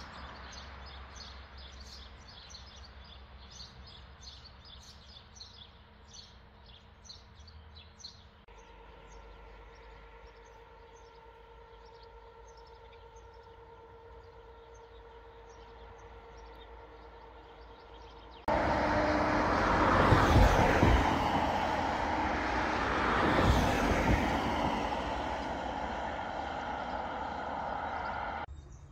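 Outdoor ambience in three abrupt sections: birds chirping over a soft background, then a steady machine hum with a few held tones, then, about two-thirds of the way through, a much louder rushing noise that swells twice and cuts off just before the end.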